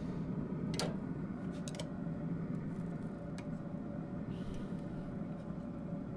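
Metal tongs clicking against the smoker's steel grate as chicken wings are laid on, a few sharp separate clicks, over a steady low hum.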